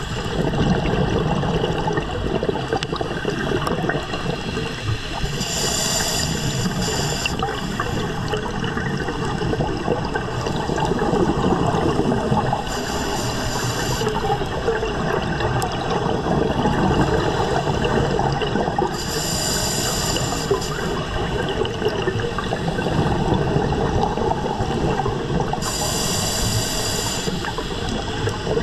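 Scuba diver's regulator breathing, heard underwater through a camera housing: a short hiss of inhalation four times, about every six to seven seconds, with gurgling exhaled bubbles between.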